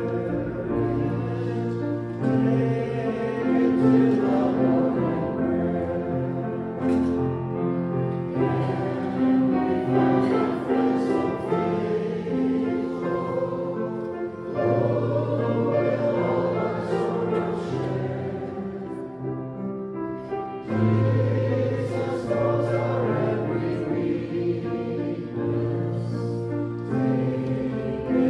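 Choral music: a choir singing slow phrases of held notes.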